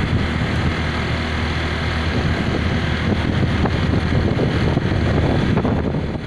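Motorcycle engine running steadily while riding, with road and wind noise on the microphone.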